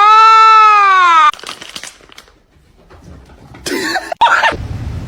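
A cat's long meow, rising and then falling in pitch over about a second and a half. A short noisy burst follows a couple of seconds later.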